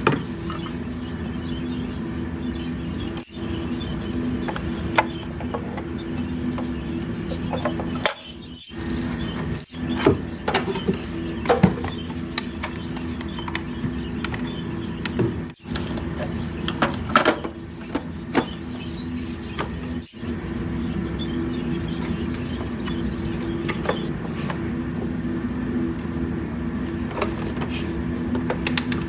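Humidifier packaging being handled and opened, with scattered rustles and sharp clicks over a steady low hum.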